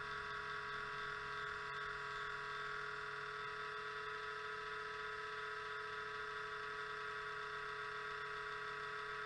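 Lenovo Z500 laptop's CPU cooling fan running at startup with a steady, unchanging whining hum.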